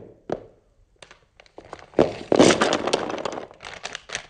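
A couple of knocks, then about two seconds in a dense clatter of many small clicks as a packet of cutout alphabet letters is tipped out onto a board.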